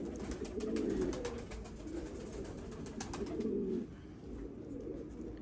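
Domestic pigeons cooing, a repeated low rolling coo, with faint clicks during the first three seconds.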